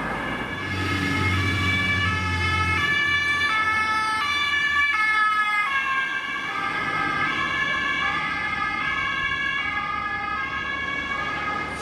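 German police patrol car's two-tone siren (Martinshorn), stepping back and forth between a high and a low note without pause. The car's engine can be heard underneath for the first few seconds.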